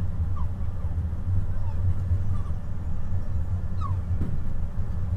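Steady low rumble of a moving train heard from inside an air-conditioned sleeper coach, with a few faint, brief squeaks over it.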